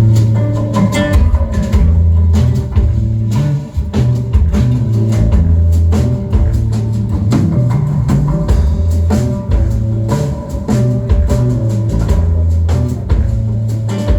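Band playing live with a drum kit, bass guitar and guitar: a steady beat under a prominent, moving bass line.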